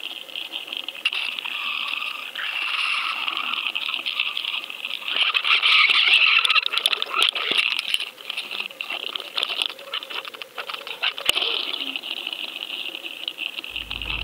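Sound picked up inside a towed underwater camera's waterproof housing: a muffled, steady rush of water past the camera, with dense crackling and small clicks, and one sharp click about eleven seconds in.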